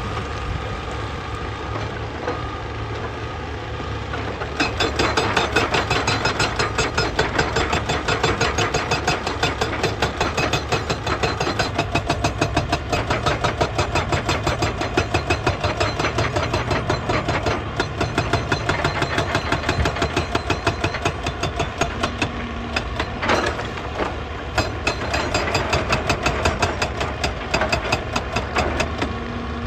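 Excavator diesel engine running, then about four seconds in a hydraulic rock breaker starts hammering rapidly and steadily on rock. It keeps on with a couple of brief pauses.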